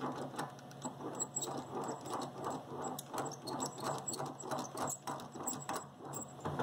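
Homemade plywood vise being cranked by hand, its threaded steel rod turning through the jaw hardware: a fast, uneven run of small clicks and rubs.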